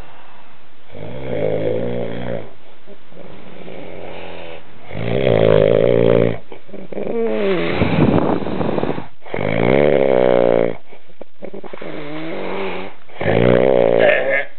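A man snoring loudly: about seven long, pitched snores in a row, one every two seconds or so, some gliding in pitch.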